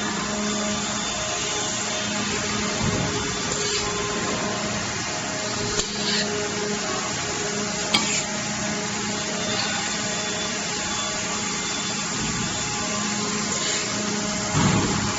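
Automatic cookware stud-welding machine running: a steady mechanical hum and hiss with a few short clicks and clanks, the sharpest about eight seconds in.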